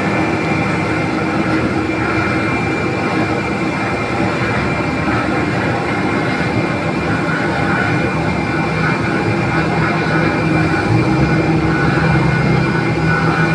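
Airbus A320 jet engines running, a loud, steady noise with a thin high tone through it; about eleven seconds in, a low hum comes in and the sound grows slightly louder.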